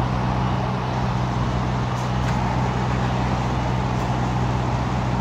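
Scania V8 diesel truck engine idling steadily at a low, even pitch.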